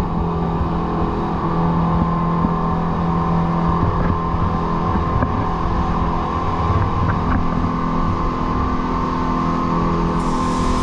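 Speedboat engines running steadily at cruising speed, one constant pitch, over the rush of the hull and wake through the water.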